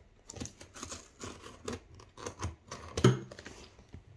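A knife blade cutting along duct tape on a cardboard box: a string of short scrapes and clicks, the loudest about three seconds in.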